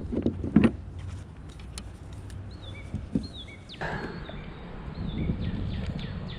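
A few knocks and bumps in the first second, then a bird calling: short, repeated notes that dip in pitch, over a steady low outdoor rumble.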